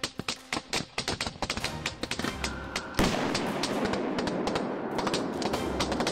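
Rapid gunfire over background music. About three seconds in, the firing becomes much louder and turns into a dense, continuous crackle.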